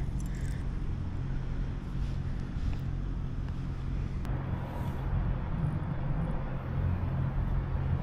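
A steady low mechanical hum, with a single light knock about four seconds in.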